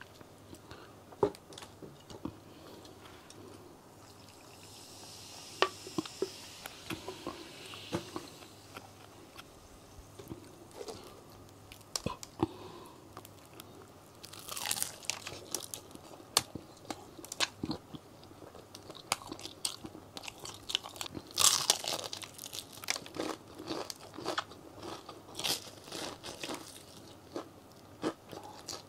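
Close-up eating sounds of crispy fried chicken being bitten and chewed: sharp crunches of the breaded coating and wet mouth clicks. The heaviest crunching comes in clusters around the middle and again about three-quarters in.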